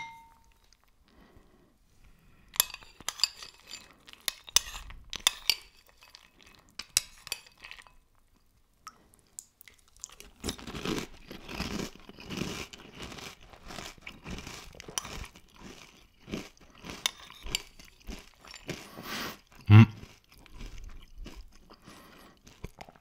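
Close-up chewing of crunchy muesli: crisp, sharp crunches with a pause partway, then steadier, denser crunching and chewing. A short clink comes at the start and a louder thump near the end.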